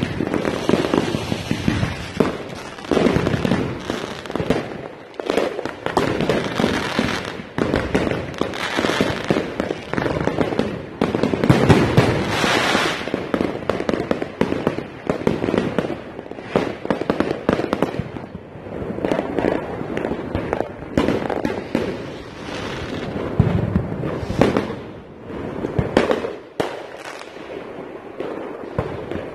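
Aerial fireworks going off in quick succession: a dense, unbroken run of bangs and crackling that thins out a little near the end.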